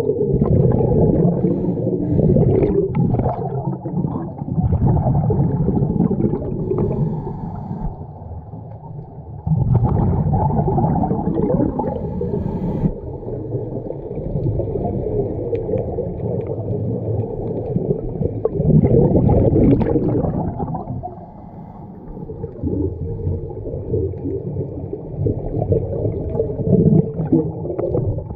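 Scuba diver's breathing through a regulator, heard underwater: loud, muffled bubbling of exhalations that swells and eases over several seconds, with two brief quieter gaps.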